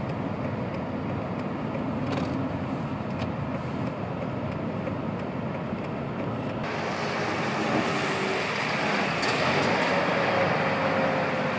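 Road noise and a car engine running, heard from inside a car in slow traffic; after a cut about two-thirds of the way in, a heavy lorry running as it hauls a low-loader trailer past.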